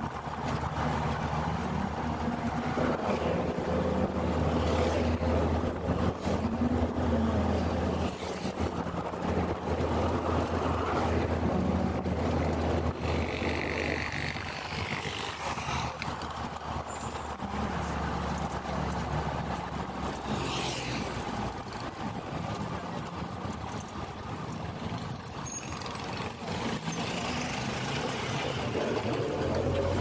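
A car driving along a road, heard from inside: steady engine hum and tyre noise, the engine pitch rising and falling a few times as it speeds up and slows down, with other traffic passing close by.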